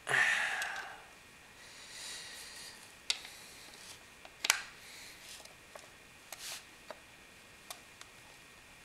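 An AR-15 armorer's wrench and the airsoft rifle being handled as its barrel nut is tightened: a louder burst of rubbing in the first second, then scattered sharp clicks and short scrapes of metal and plastic parts.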